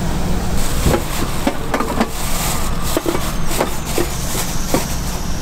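Utensils clicking and knocking at a street toast stall: about a dozen irregular sharp taps, over a steady low hum of road traffic.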